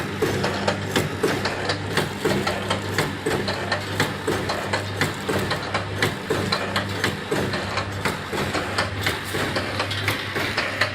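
Vertical flow-pack (flow-wrap) packaging machine running at about 60 bags a minute: a steady low motor hum under a quick, continual clicking and clacking of its feed, sealing and cutting mechanism.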